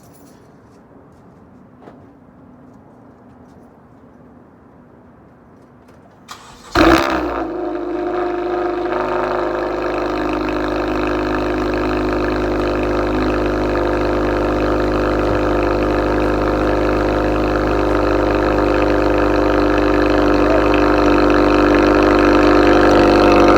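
Cold start of a 2017 Honda Accord Sport's 2.4-litre four-cylinder, fitted with an RV6 downpipe with pre-cat delete, resonator delete and Borla exhaust. After several seconds of low background with a click or two, the engine fires with a brief loud flare, then settles into a steady fast idle that slowly grows louder.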